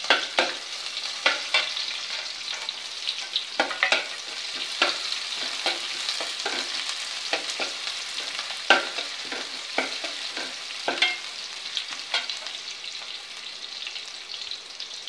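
Sliced onion, green chillies and whole spices sizzling in hot oil in an aluminium pot. A steel slotted ladle stirs them, clinking and scraping against the pot many times at an irregular pace.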